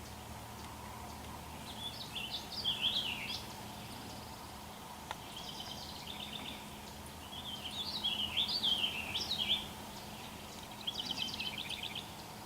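A songbird singing four short phrases of quick warbled and trilled notes, with pauses of one to two seconds between them, over a steady low background hum.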